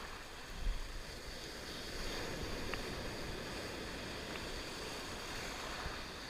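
Sea surf breaking and washing in a steady rush, with wind on the microphone and one low wind buffet about a second in.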